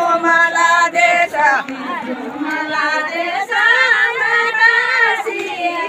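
Several women singing a Kumaoni jhora folk song together, their voices overlapping on long held notes.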